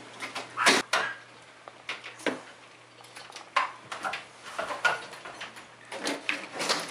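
Irregular clinks, knocks and scrapes of metal hand tools on an old wooden sash window frame as the parting bead is worked loose.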